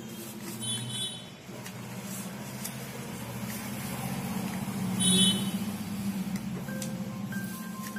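Low rumble of a motor vehicle engine going by, swelling to its loudest about five seconds in, with a short high-pitched sound about a second in and again at the peak.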